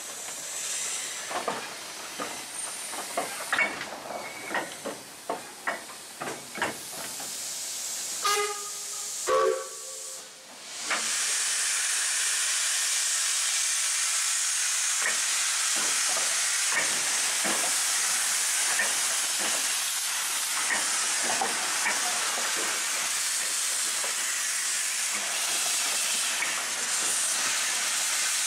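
A steam locomotive, Robert Stephenson & Hawthorns saddle tank NCB No.49, with irregular metallic knocks at first and two short pitched tones. About eleven seconds in, a loud steady hiss of escaping steam starts suddenly and keeps on.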